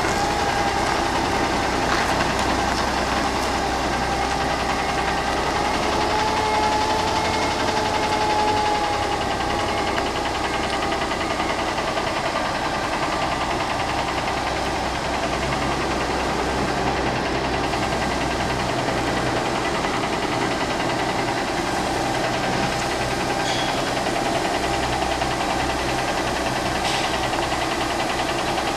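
Kenworth cab-over truck's diesel engine running steadily at low revs as the rig reverses slowly, with a thin whine over it that fades out about a third of the way in.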